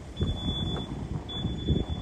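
Wind buffeting the microphone in uneven gusts, with a thin, steady high-pitched whine that breaks off briefly near the middle.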